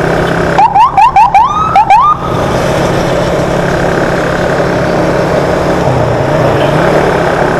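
Escort siren giving a quick run of about six short rising whoops, loud and close, during the first couple of seconds, over the steady drone of a motorcycle engine and road noise, which carries on alone afterwards.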